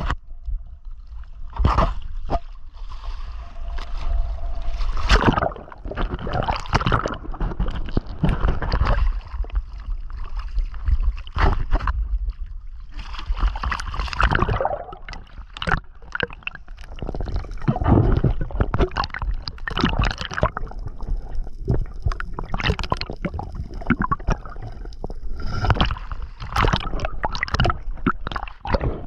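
Sea water gurgling and sloshing in rough waves, with irregular splashes and knocks.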